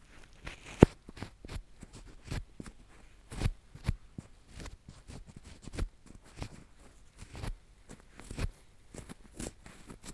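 Spiral 'drill screw' earpick scraping inside an ear: irregular scratches and crackling clicks, with one sharp, loud click about a second in.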